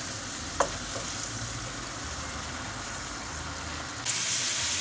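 Morels and shallot sizzling in a nonstick frying pan as white wine boils off over a high flame. A single short knock comes about half a second in, and the sizzle turns louder and hissier near the end.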